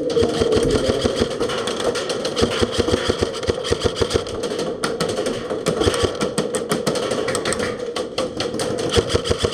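Airsoft electric guns firing rapid, sustained full-auto bursts: a steady gearbox whine under a fast, continuous run of sharp clicks.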